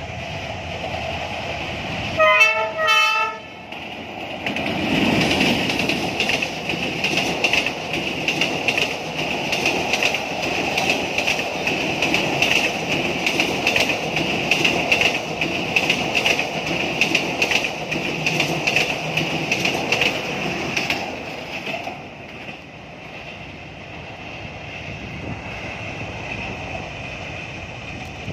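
Diesel locomotive sounds its horn in two short blasts about two seconds in, then the passenger train passes close by: the engine's rumble and then the carriages rolling past with a rhythmic clickety-clack of wheels over the rail joints. The clatter fades out near the end as the last carriage draws away.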